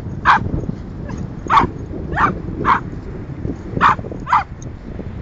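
A Cavalier King Charles spaniel barking in short, sharp barks, about seven at uneven intervals, excited at the ball launcher as it waits for the ball to be thrown.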